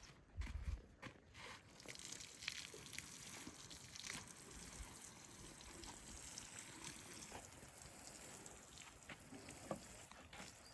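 Water pouring and trickling steadily onto soil, faint, after a few low thumps in the first second or two.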